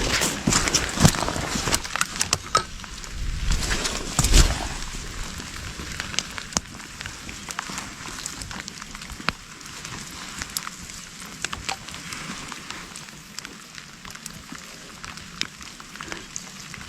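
Rustling and crackling of leaves and ground litter, with a few heavier thumps in the first few seconds, then lighter scattered crackles.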